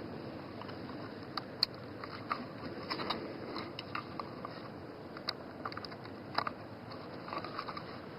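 Small screws being driven with a hand screwdriver into the plastic housing of a fan speed control switch: scattered, irregular light clicks and scrapes over a steady background hiss.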